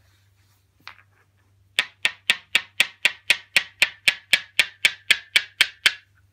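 Two smooth black basalt massage stones knocked against each other: one light tap about a second in, then a quick, even run of about seventeen sharp clacks, roughly four a second, that stops shortly before the end.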